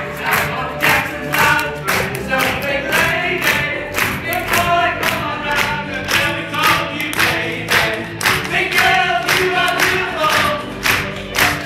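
Several voices singing a song together over backing music, with a steady beat of about two strokes a second.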